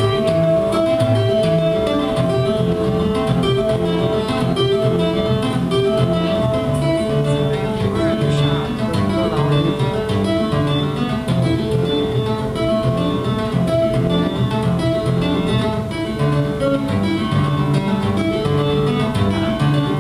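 Acoustic-electric guitar played by two-handed tapping on the fretboard: a busy, unbroken run of notes over a moving bass line, with one high note ringing on steadily underneath.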